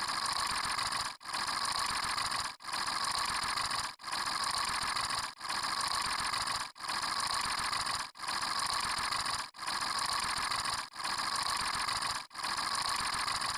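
A noisy mechanical sound effect, the same clip played ten times in a row. Each lasts about a second and a half, with a brief break between them.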